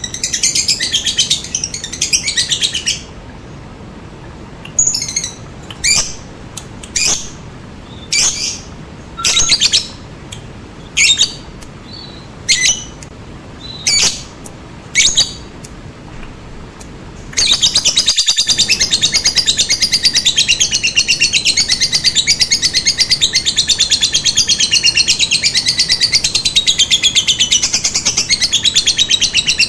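Lovebird calling. It begins with dense chattering, then gives single sharp calls about once a second, and a little past the middle breaks into a long, unbroken rapid chatter.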